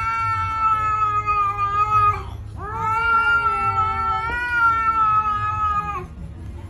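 A grey cat yowling at a rival cat in a quarrel: two long, drawn-out wails. The first ends about two seconds in, and the second starts half a second later and breaks off about a second before the end.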